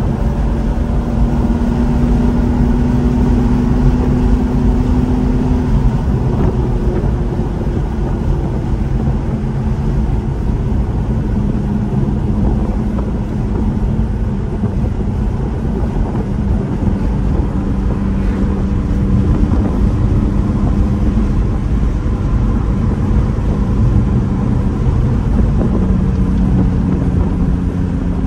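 Car driving at cruising speed: a steady engine drone mixed with road noise, its pitch stepping and gliding slowly now and then as the revs change.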